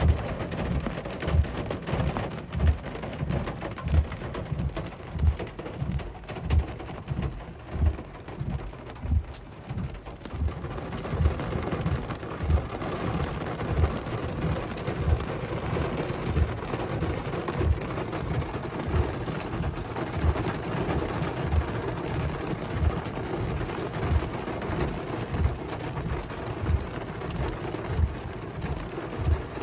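Hailstorm: hail and rain falling in a steady hiss, over a regular low thump about one and a half times a second.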